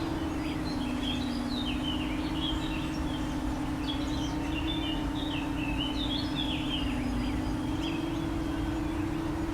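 Steady buzz of a palm-size homemade FPV quadcopter's motors, its pitch drifting slightly up and down, with birds chirping over it.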